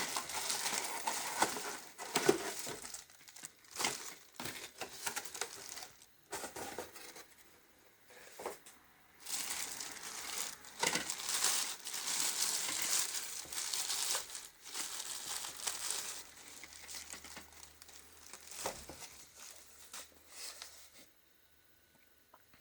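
Kettle packaging being handled: irregular crinkling, rustling and tearing in uneven spells, which stop shortly before the end.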